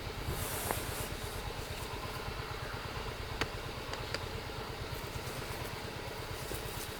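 A small engine running steadily at a fast, even low throb, with a few light clicks.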